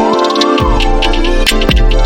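Electronic background music with a steady drum beat, a deep bass and a synth line that glides up and down.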